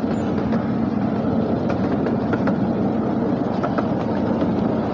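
Miniature ride-on train running along its small-gauge track: a steady rumble with a few scattered sharp clicks.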